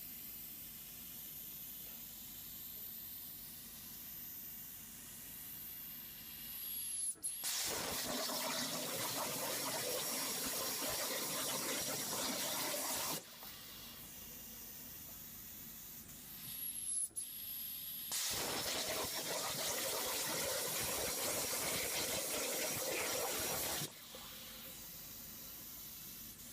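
300-amp Hypertherm plasma arc cutting on a CNC table: a loud, steady hissing rush that starts suddenly about seven seconds in and again about eighteen seconds in, each cut lasting about six seconds and stopping abruptly. Before and between the cuts there is a quieter steady hiss with a faint high whine.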